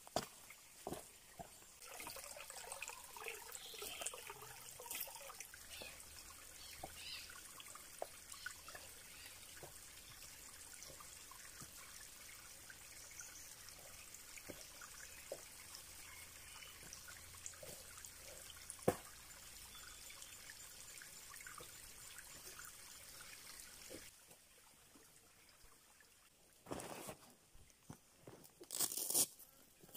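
Water trickling over rocks, with scattered small clicks and crunches of footsteps on wet rock and brushing vegetation. Near the end the background turns quieter and two louder rustling knocks come as a backpack and rolled sleeping mat are set down on the rock.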